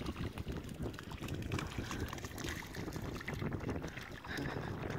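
A dog splashing through shallow river water, its paws and snout repeatedly slapping the surface in irregular splashes, with wind rumbling on the microphone.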